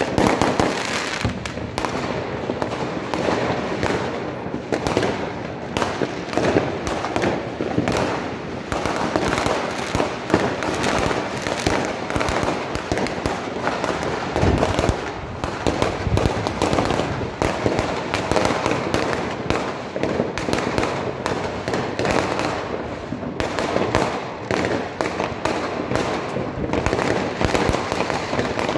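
Many fireworks going off at once: rockets bursting and firecrackers banging in a dense, unbroken barrage of overlapping bangs and crackles.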